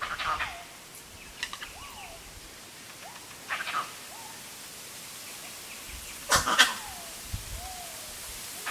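A bird's short calls, each rising and then falling, repeat every second or two. Among them are a few loud, short rustling crackles, the loudest a pair about six and a half seconds in.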